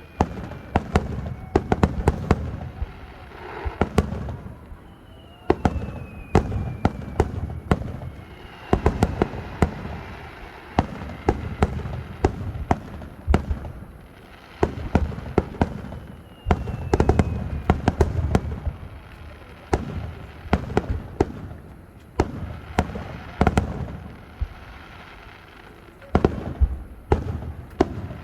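Fireworks display: volleys of aerial shell bursts, with clusters of sharp bangs and low rolling booms. A thin falling whistle rises above them a few times.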